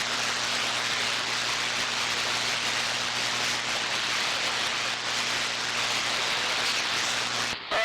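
CB radio receiver hissing with band noise while a distant station keys up without speaking: an open carrier with a steady low hum, cutting off sharply near the end.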